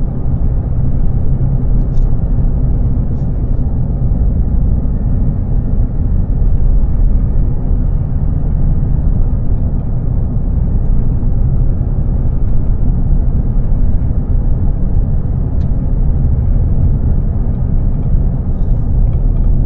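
Steady low rumble of a car driving along: engine and road noise at an even speed.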